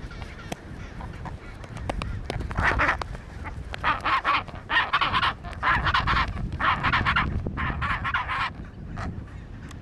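Chinstrap penguin braying: a series of about six harsh, pulsing calls, starting a couple of seconds in and ending near the end, over a steady low rumble.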